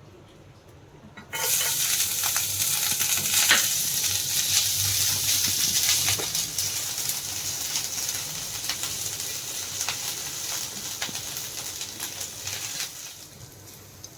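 Chopped ginger and garlic going into hot oil in a pan: the oil starts sizzling loudly about a second in, then slowly dies down, with short clinks of a spoon stirring.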